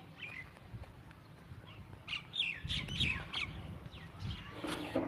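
A bird calling a quick run of short, high, falling chirps about two seconds in, over low rumbling from the walking, handheld phone. A brief louder call with a lower tone comes near the end.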